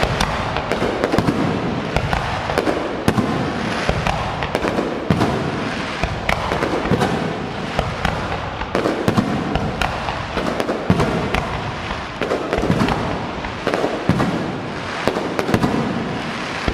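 Fireworks display: a dense, continuous run of bangs and crackling, with many sharp reports close together and no pause.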